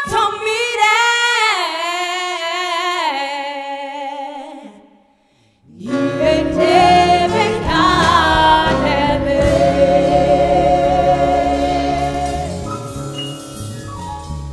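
A woman singing a gospel worship song, with vibrato on falling notes. For the first few seconds her voice is almost unaccompanied. After a short break about five seconds in, she comes back in over instrumental backing and holds a long note.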